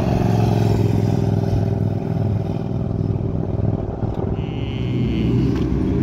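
Sport motorcycles passing on the road, a steady low engine note from the first bike. About four seconds in, a higher engine note comes in briefly.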